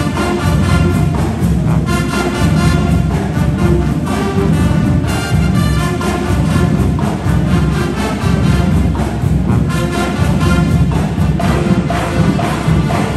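High school marching band playing loud, with the brass section holding chords over regular drum hits.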